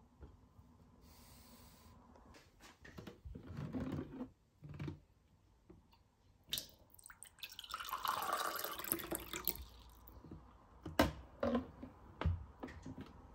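Water running from a tap for about three seconds in the middle, amid scattered clicks and knocks of things being handled.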